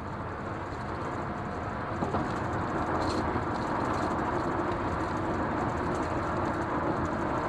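Steady road and engine noise heard from inside a moving car, with a faint steady hum that comes in about two seconds in.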